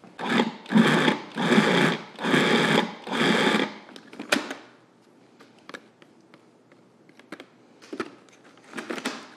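Food processor pulsed five times in quick half-second bursts, its blade chopping fresh cranberries into crumbly shortbread dough. A single sharp click follows, then only faint ticks.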